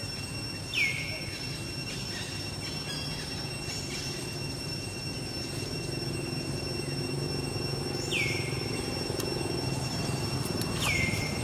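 Three short, high squealing calls, each sliding down in pitch, about a second in, around eight seconds and near the end. Under them a steady high-pitched whine and a low rumble that grows louder in the second half.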